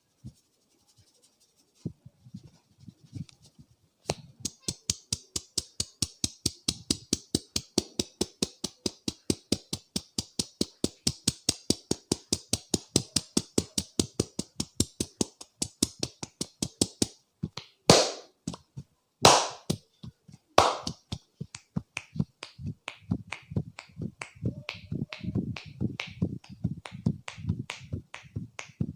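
A barber's hands striking the head in a percussive head massage: rapid, evenly spaced crisp snapping strikes, about six a second, for about thirteen seconds. Then come three much louder sharp cracks about a second and a half apart, followed by slower, duller pats.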